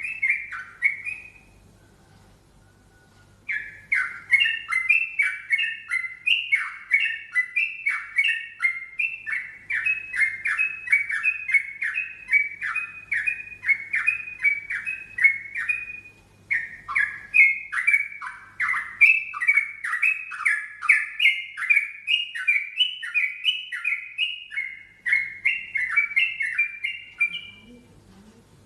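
Yellow-vented bulbul (trucukan) singing a strange-sounding song: long runs of short, quick notes, each dropping in pitch, about three a second, broken by a pause of about two seconds near the start.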